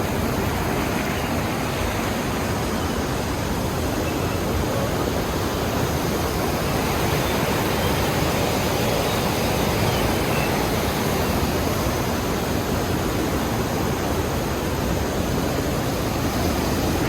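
Steady, unbroken rush of a waterfall and its fast-flowing stream.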